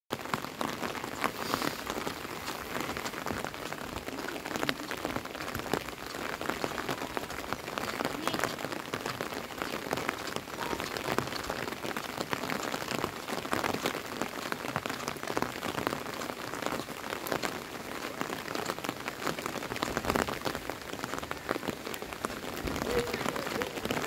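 Steady rain falling on a wet asphalt road and roadside grass, a dense patter of many small drop impacts at an even level.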